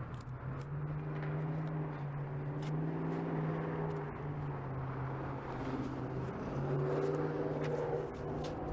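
A motor vehicle's engine running, a steady hum whose pitch steps up about a second in, drops back around the middle and rises again near the end.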